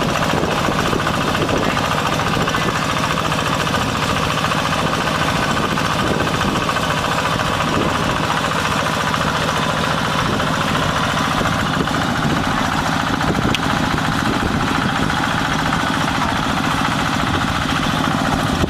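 Mini combine harvester's engine and machinery running steadily at a constant speed, with a fast, even mechanical pulse.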